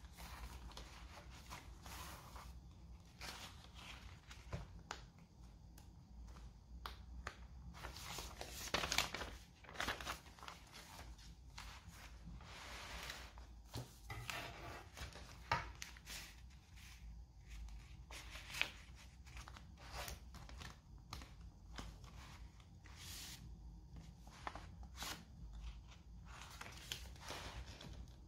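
Paper pages and cards of a handmade journal rustling and flapping as they are turned and smoothed by hand, with soft scattered clicks. The loudest rustles come about nine and ten seconds in.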